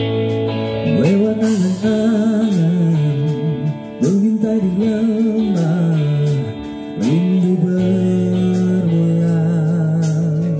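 A song sung with vibrato over guitar accompaniment, in long phrases with short breaks about four and seven seconds in.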